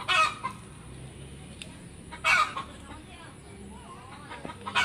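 Hen cackling, two loud short calls about two seconds apart: the cackle a hen gives around laying an egg.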